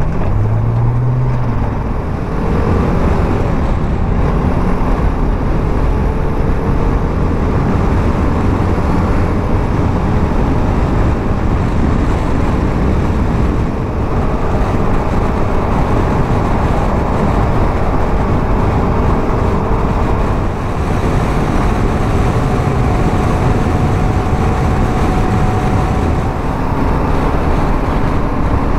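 BMW G310 GS single-cylinder motorcycle running at road speed, with a steady rush of wind over the microphone.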